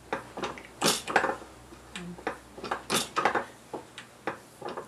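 Light metallic clicks, taps and clinks from thin silver sheet stock being slid against the fence and cut on a small 6-inch bench guillotine shear. About a dozen short, sharp sounds come in irregular clusters.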